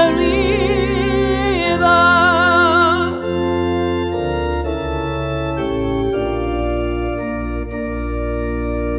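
A woman singing with heavy vibrato over held chords from a Yamaha electronic keyboard on an organ voice. Her voice stops about three seconds in, and the keyboard's sustained organ chords carry on alone, changing every second or so.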